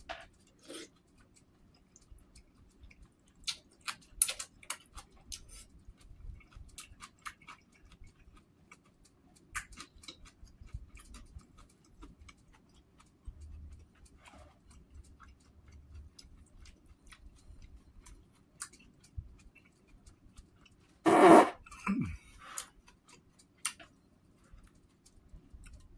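Eating sounds: a metal spoon clicking and scraping against a ceramic bowl of soup, with chewing and mouth noises. About 21 seconds in comes one loud throaty mouth sound lasting under a second, then a shorter one that falls in pitch.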